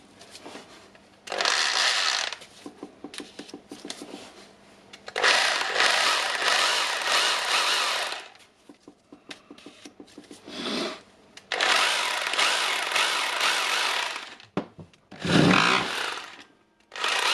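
Freshly rebuilt Makita SDS-plus rotary hammer running unloaded in hammering mode, switched on in about five short runs of one to three seconds each. The hammer action is working properly.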